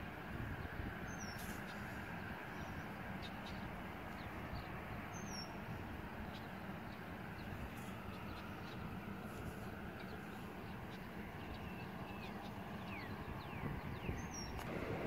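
Small birds chirping now and then over a steady low outdoor rumble, which swells near the end as the approaching freight train draws closer.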